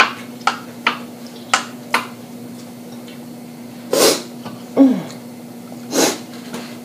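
Mouth sounds of someone eating: a run of sharp lip-smacking clicks, then two short breathy bursts about two seconds apart, with a brief low falling hum between them. A steady low electrical-type hum runs underneath.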